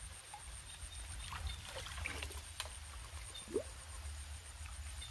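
Low rustling and splashing of someone wading through wet grass and mud, under a steady high pulsing insect trill. A few faint short rising chirps, one a little louder about three and a half seconds in.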